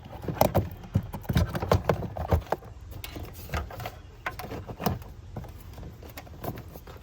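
Irregular clicks, knocks and rustles of car wiring and connectors being handled and tucked in behind plastic trim, busiest in the first three seconds and sparser after.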